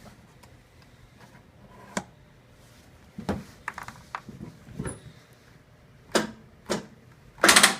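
Short clicks and knocks, spaced out and then bunched and loudest near the end, with no engine cranking or running. The John Deere L130 lawn tractor fails to start because its battery is dead.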